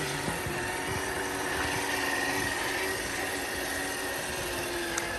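Electric motor and gear drivetrain of an RC crawler whining steadily as it drives.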